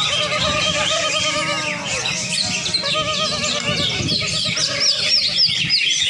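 Many caged green leafbirds (cucak ijo) singing at once in a songbird-contest arena: a dense, unbroken chatter of high trills, chirps and whistles, with lower wavering calls and a murmur of people underneath.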